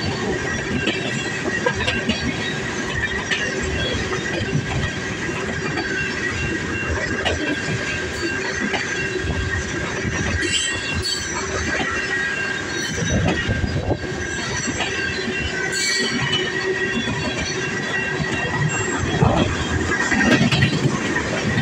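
CN freight train's cars rolling past, steel wheels squealing in a steady high tone, with clicks and knocks from the wheels over the rail joints.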